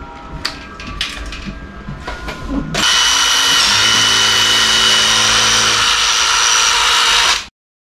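A few light clicks and knocks, then about three seconds in a power drill starts and runs steadily at full speed. It cuts off abruptly about five seconds later.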